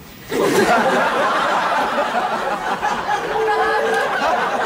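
Studio audience laughing, breaking out suddenly about a third of a second in and going on steadily.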